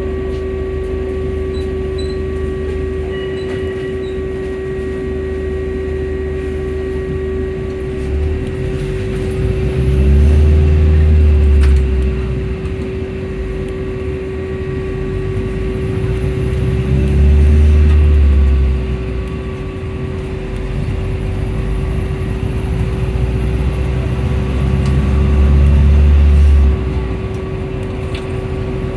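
Volvo B5L hybrid bus running with a steady whine throughout. Three times, about seven seconds apart, a deep low drone swells up for around two seconds and then drops away: the bus's odd sounds.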